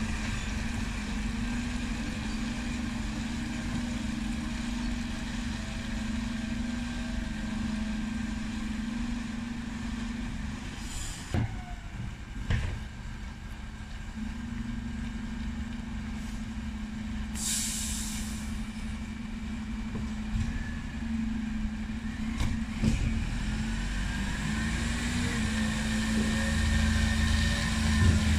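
Dennis Eagle Elite 6 bin lorry's diesel engine running steadily, with a short air-brake hiss about two-thirds of the way through. Near the end the engine picks up as the lorry pulls forward.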